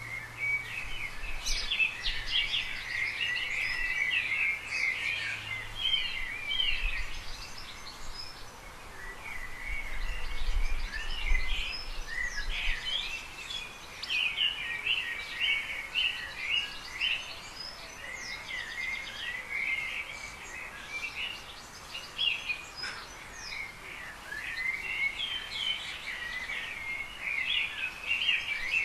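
Garden birdsong: several birds chirping and trilling at once, with many short overlapping calls.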